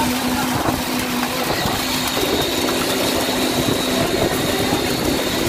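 Steady engine-driven machinery running during a concrete pour, a constant hum over continuous noise, as fresh concrete is placed and vibrated around the reinforcing bars.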